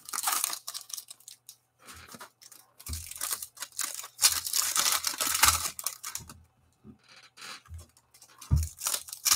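Wrapper of a Bowman baseball card pack being torn open and crinkled by hand, in scratchy bursts loudest in the middle, with a few soft bumps of handling.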